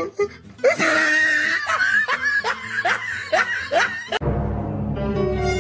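A person laughing in a run of short, falling bursts over background music; the laughter cuts off suddenly about four seconds in and a different steady sound takes over.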